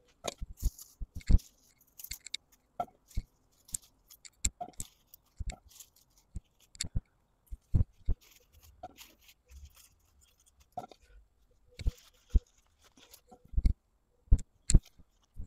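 Ivy gourd vines being picked over by hand: irregular crisp snaps of stems and fruit being broken off, with rustling of leaves between them.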